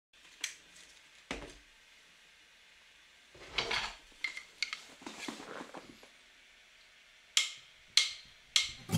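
Scattered sharp clicks and taps, about eight in all and bunched more closely near the end, with two short spells of rustling in between.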